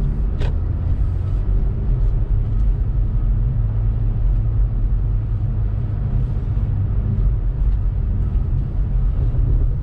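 2018 Honda Civic Turbo Sport hatchback driving on snow-covered streets: a steady low rumble of its 1.5-litre turbocharged four-cylinder engine and its tyres, with a single short click about half a second in.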